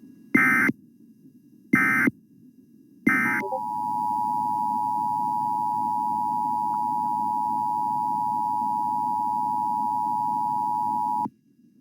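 Emergency Alert System activation: three short bursts of warbling SAME header data about a second and a half apart, then the two-tone EAS attention signal held steady for about eight seconds before cutting off abruptly. A faint low hiss runs underneath.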